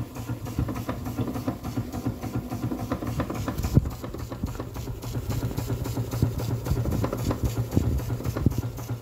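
Schoener Lipsia toy steam engine running under steam, a fast, even chuffing and mechanical clatter over a steady low hum.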